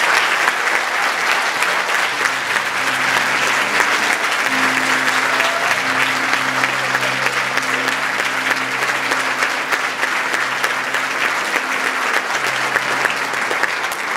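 Congregation applauding steadily, many hands clapping at once. From a couple of seconds in, a few low sustained instrument notes are held underneath the clapping for most of the time.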